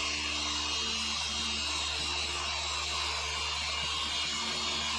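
Dual-action electric car polisher running steadily with a blue foam pad and coarse compound, buffing fresh paint to remove sanding scratches.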